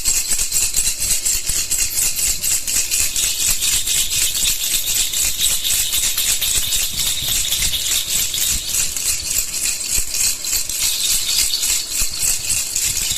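Baby rattle shaken quickly and steadily, a continuous bright rattling.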